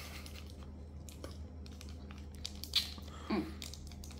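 A Cocola Choco Stick biscuit stick being bitten and chewed, with one sharp crunch a little before three seconds in. It is followed shortly by a brief hummed sound from the eater, over a low steady hum.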